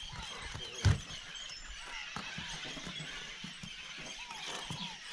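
Outdoor ambience of repeated short chirps over scattered low thuds, with one loud knock about a second in.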